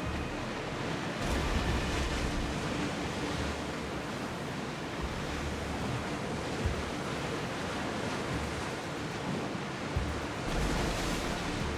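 Sea waves washing steadily, with wind buffeting the microphone in low rumbles that swell and ease, strongest near the end.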